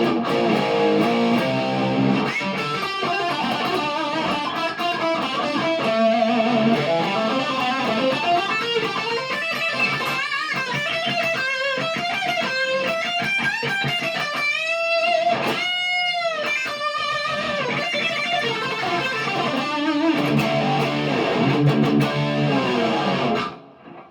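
PRS McCarty 594 Hollowbody II electric guitar played through a Marshall DSL40C amp. It starts with chords, moves into a single-note lead line with a few bent notes about halfway through, returns to chords, and stops just before the end.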